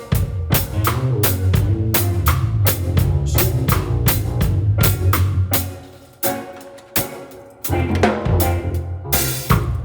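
Drum kit playing a groove of bass drum and snare over a bass line. The band thins to a few sparse hits for about two seconds past the middle, then the full groove comes back in.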